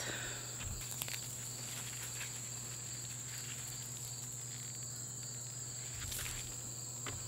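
Steady high-pitched chorus of insects, with a few faint rustles as weeds are pulled from a raised bed.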